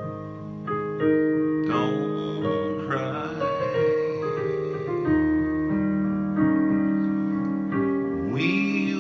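Electric keyboard playing slow held chords in a ballad accompaniment, with a man's voice singing a phrase about two seconds in and again near the end.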